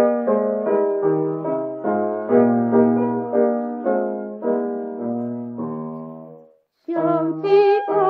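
Piano chords struck in an even rhythm, about two and a half a second, from a 1935 gramophone record. The piano stops about six and a half seconds in, and after a brief gap a woman's voice comes in singing with vibrato over the piano.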